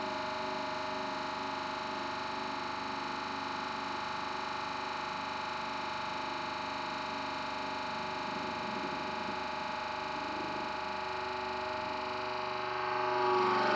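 Hydraulic press running with a steady, even hum while its ram slowly squashes a soft Play-Doh figure. Near the end the sound grows louder and changes pitch.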